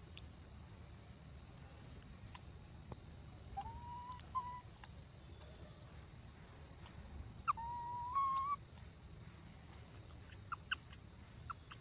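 Two macaque coo calls, each about a second long, near 4 s and 8 s. Each rises briefly, then holds at one pitch. Under them runs a steady high-pitched hum, with a few faint clicks.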